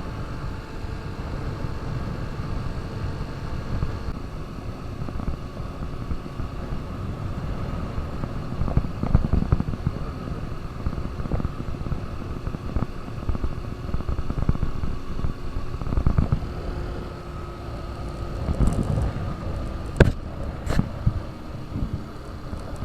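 KTM RC 200 BS6's single-cylinder engine running steadily under way, with a heavy low rumble. Two sharp clicks near the end.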